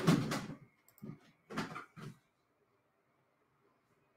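A loud bump dying away in the first half second, a short click about a second in, and two brief knocks a little later, then only faint room tone.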